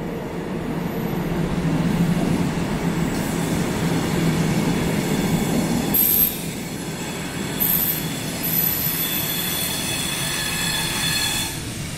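Older SNCB electric multiple unit pulling into an underground platform with a steady low rumble. High-pitched wheel and brake squeals come in from about six seconds in as it slows to stop.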